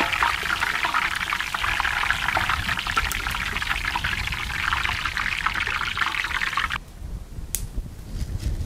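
Potato slices deep-frying in hot oil: a dense, steady crackling sizzle that cuts off suddenly about seven seconds in, leaving a low rumble.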